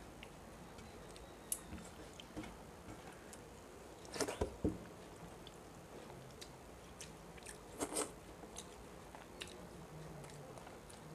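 Close-up eating sounds of a person eating rice and rohu fish-head curry by hand from a steel plate: quiet squishing of the rice worked with the fingers, chewing and biting, with scattered sharp clicks and two louder bursts of chewing about four and eight seconds in.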